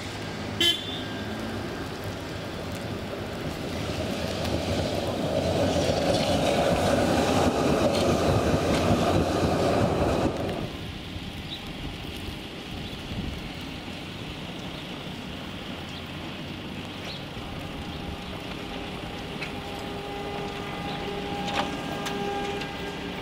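Traffic on a snow-covered city street: a trolleybus pulls away and a car passes through slush, the noise building to a loud rush that breaks off abruptly about ten seconds in. A brief sharp high click sounds about a second in. Afterwards, quieter street noise, with a steady whine rising as a bus draws near toward the end.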